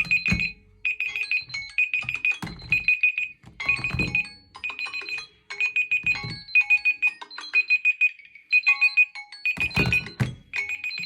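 Smartphone alert tone: a high electronic beep repeating in quick groups of several, pausing briefly about eight seconds in. A few dull thumps sound along with it, most of them near the end.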